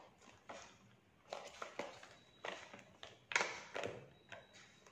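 Plastic makeup products, such as tubes and compacts, clicking and knocking against each other as they are handled in a makeup case: about eight light, irregular taps.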